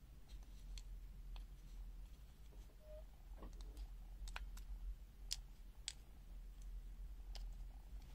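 Faint, irregular light clicks of a small precision screwdriver tip tapping and scraping on the hard plastic front case of a multimeter, around its selector-dial housing.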